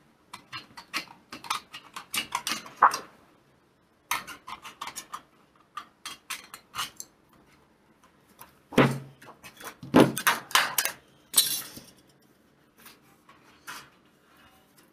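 Tin snips cutting thin powder-coated iron (GI) sheet along a marked line: runs of short, crisp metallic snips in quick clusters. The loudest clacks come around the middle, followed by a brief scrape of the sheet.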